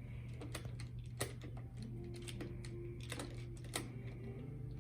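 Plastic magnetic building tiles (Magna-Tiles) clicking and clacking together as they are handled and snapped into place: a series of scattered sharp clicks, the loudest about a second in and again near the end.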